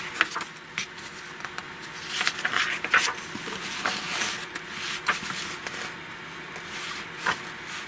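Pages of an old magazine being turned by hand: paper rustling and flicking in short, irregular bursts. The pages are matte, book-like paper rather than glossy stock.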